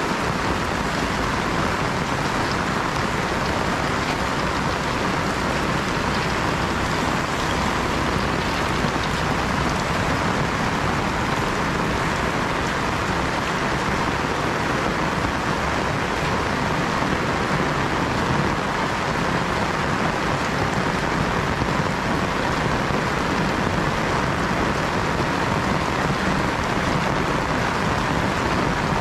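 Heavy rain falling steadily, a loud, even hiss with no breaks.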